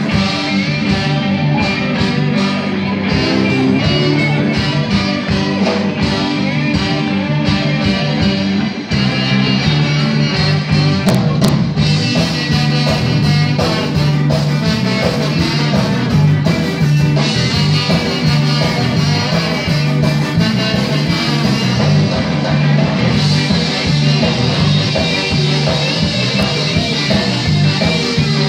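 Live band playing rock music for dancing, with guitar and a steady beat.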